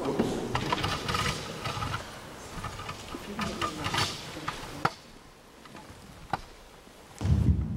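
Handling noise from a handheld microphone being taken up: scattered clicks and rustles, then a loud, low thump near the end.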